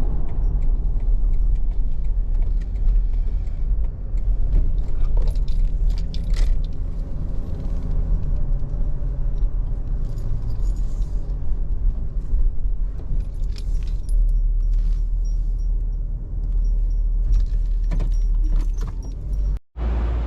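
Onewheel electric board rolling over pavement: a steady low rumble with scattered rattling clicks, cut off briefly near the end.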